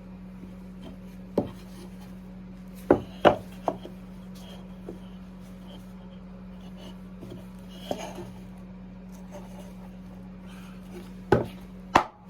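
Birdhouse pieces being nailed together: sharp knocks on wood at an irregular pace. One comes early, three close together about three seconds in, a lighter one near the middle and two near the end, over a steady low hum.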